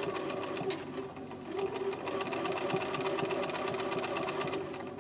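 Sewing machine stitching through felt at a steady run of rapid needle strokes, easing off briefly about a second and a half in, then stopping near the end.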